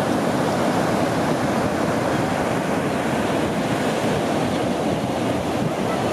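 Pacific Ocean surf breaking and washing up the beach, a steady, unbroken rush of waves.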